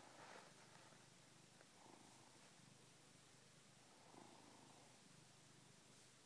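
Domestic cat purring faintly while being stroked on the head, a steady low purr that swells about every two seconds with its breaths.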